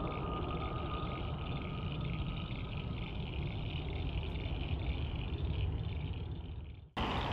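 Distant jet airliner engines rumbling, with a thin steady whine over the rumble for the first few seconds. The sound breaks off abruptly for an instant near the end, then the rumble resumes.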